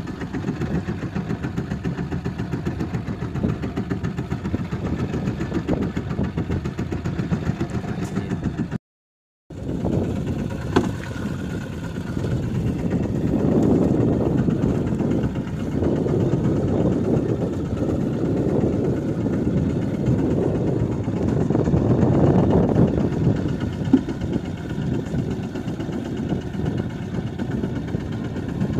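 A boat's engine running steadily with a low drone. The sound cuts out completely for a moment about a third of the way through, then carries on.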